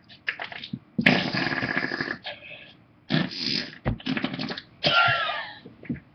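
A string of fart noises: raspy, sputtering bursts, the longest about a second, with short sputters in between.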